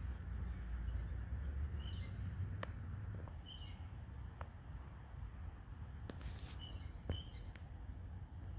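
Small birds giving short, high chirps off and on, with a few sharp ticks in between, over a low steady rumble.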